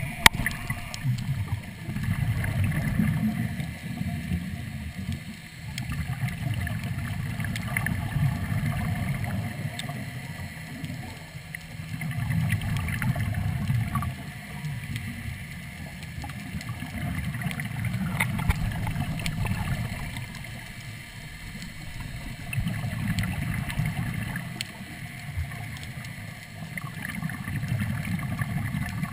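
Diver breathing through a Third Lung hookah regulator underwater, heard through a camera housing: a muffled, low rumble of breath and exhaled bubbles that swells and fades about every five seconds.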